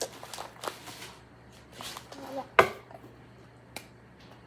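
Scattered small clicks and taps of hands working at a toy container that will not open, with one sharp loud click a little past halfway.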